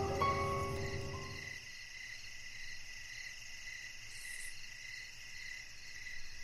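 A few held musical notes fade out in the first second and a half, leaving a steady chorus of crickets chirping in even, repeating pulses.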